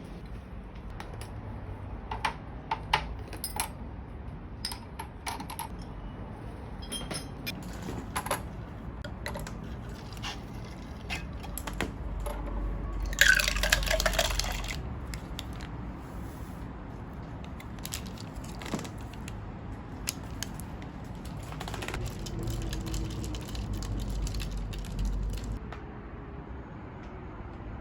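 Small clinks and knocks of tableware or camping gear, then liquid poured into a cup for a second or two about 13 seconds in, over a low steady background hum.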